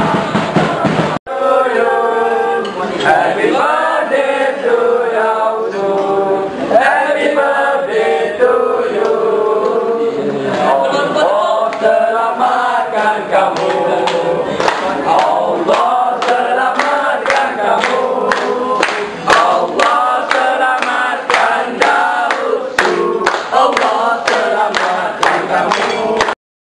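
A group of voices singing together, with a brief break about a second in; through the second half, sharp beats come in a steady rhythm with the singing.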